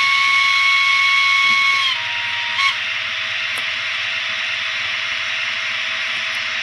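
The sound decoder of a Trix HO-scale Ce 6/8 II Crocodile model locomotive sounds a long high whistle. The whistle dips slightly in pitch and stops about two seconds in, and a short toot follows. After that comes the model's steady hissing running sound as it creeps along at minimum speed.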